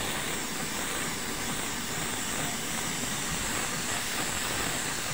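Steady, unbroken hiss of paint being sprayed.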